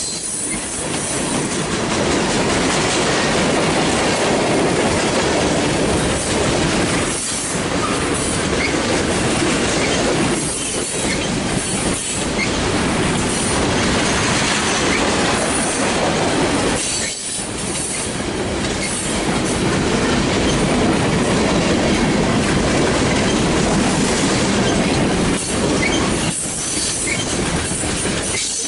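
Freight cars, mostly tank cars, rolling past close by: steel wheels on rail making a loud, steady clatter with rhythmic clacking.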